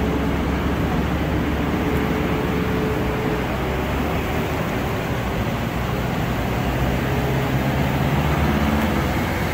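Steady road traffic noise with the hum of vehicle engines running.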